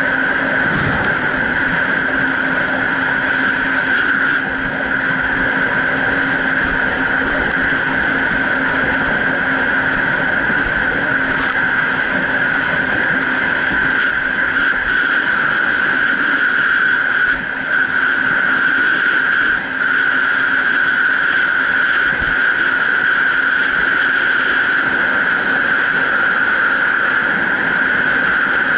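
Jet ski engine running steadily under way, a constant drone with a high whine over it and no change in pace.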